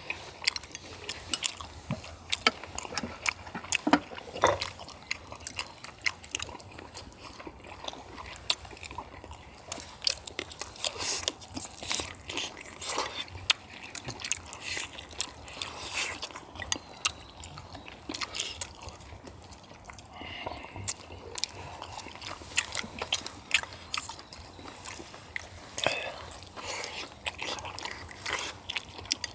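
Several people eating spicy braised chicken and webfoot octopus: close chewing and biting, with irregular sharp clicks and smacks.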